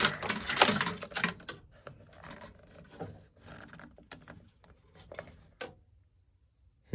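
Rapid clicking and rattling of hand tools and parts as a trimmer gear head is threaded back on, thinning to scattered small clicks and handling noises, then one short knock near the end.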